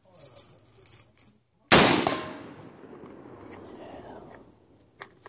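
A single AR-15 rifle shot: one sharp crack about two seconds in, followed by a long echo that fades over a couple of seconds.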